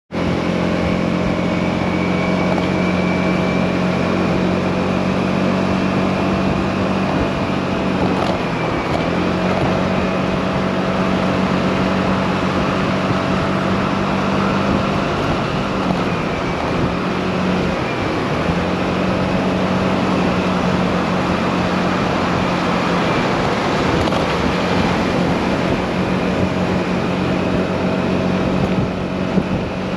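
Motorcycle engine running at a steady cruising pitch under heavy wind rush on the microphone from riding in strong wind. The engine note drops out briefly about eight seconds in and twice more about halfway through, then settles again.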